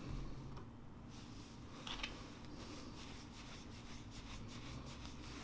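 Faint rustling and rubbing of a paper tissue being worked over a small metal camera part, the film-advance lever, to wipe gunk off it, with one slightly louder scrape about two seconds in.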